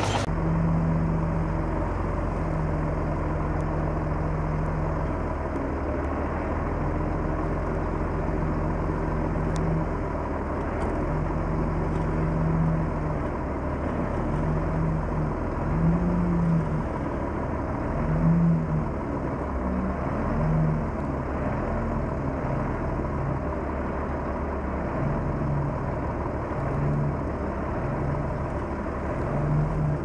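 Komatsu D31P crawler bulldozer's diesel engine running under load while spreading dirt. The note is steady at first, then from about halfway through rises and falls in short pulses about every second.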